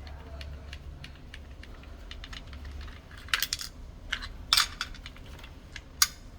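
Light irregular clicking and ticking of a screwdriver working a small screw out of a digital door lock's back handle case, with a few sharper clicks about three and a half, four and a half and six seconds in.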